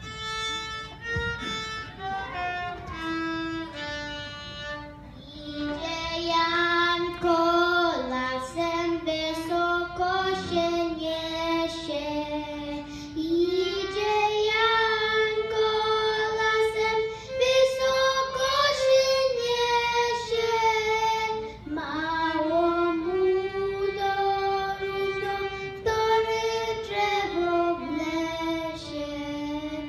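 A girl plays a few notes on the violin, then about five seconds in switches to singing a song on her own, a single child's voice with a wavering vibrato on the held notes.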